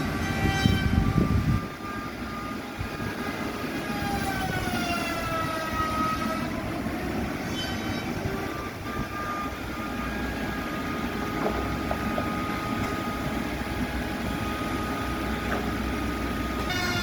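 Heavy sawmill machinery running: a pitched whine dips in pitch about midway, recovers, then holds steady over a low rumble.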